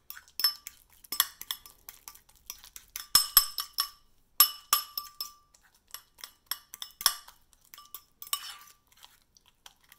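A metal fork mashing banana in a ceramic bowl, clinking against the bowl many times at an uneven pace, each strike ringing briefly.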